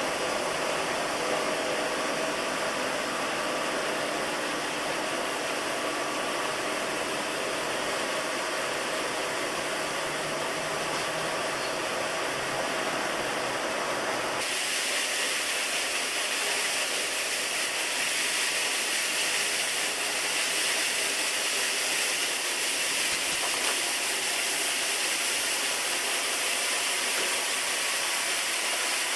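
Gunite spraying: compressed air blasting a dry sand-and-cement mix out of the nozzle of a REED SOVA gunite machine's hose, a loud, steady hiss. About halfway through it turns abruptly brighter and hissier.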